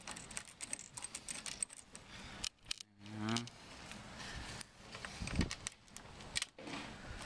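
Small metallic clicks and light rattling as screws are started by hand into the snorkel's mounting bracket on the A-pillar. A brief murmur about three seconds in, and a dull low knock a little after five seconds.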